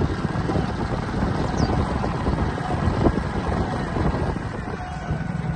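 A low, steady rumble of a moving vehicle with wind buffeting the microphone.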